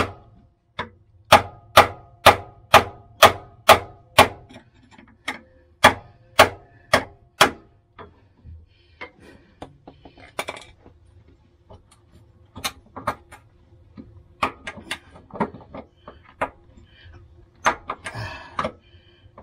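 Hammer blows on a wood chisel wedged into the slot of a van's original rear bump stop, driving it round to unscrew it. Sharp strikes come about twice a second for the first seven seconds or so, then give way to scattered lighter taps and knocks, with a short flurry near the end.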